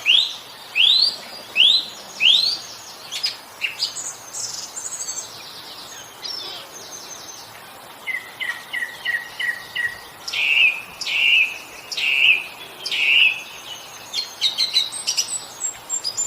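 Song thrush singing: clear whistled phrases, each repeated several times in a row. It opens with a rising note sung four times, and midway there is a run of six short quick notes.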